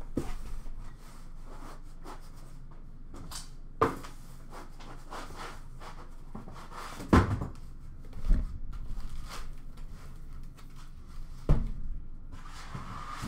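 Cardboard boxes being handled: cardboard rustling and scraping as a sealed hockey-card hobby box is lifted out of a cardboard shipping case, with three sharp knocks spread through.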